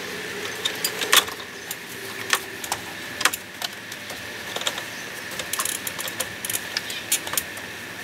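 Irregular clicks, knocks and light clanks of an extension ladder taking a man's weight as he climbs it with a heavy bucket of concrete hanging from his arm, with a faint steady high tone underneath.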